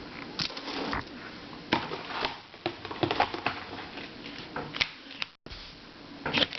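Plastic twisty puzzles being handled, giving irregular light clicks and clacks as they are picked up, turned and set down.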